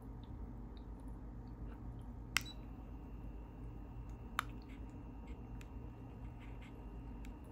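Steam-locomotive-shaped aroma diffuser running and puffing mist: a low steady hum, two sharp clicks about two seconds apart, and a faint high whine that comes in after the first click.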